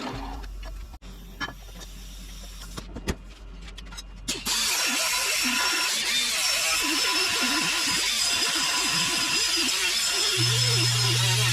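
A shop power tool working steel: a few knocks and clicks, then about four and a half seconds in a loud, steady hiss with a thin high whine that runs on, with a low hum joining near the end.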